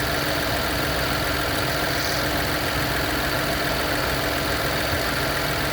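2024 Chevy Trailblazer engine idling with the AC compressor running steadily: the compressor clutch stays engaged, with no clicking on and off, because with the doors open it has stopped short cycling.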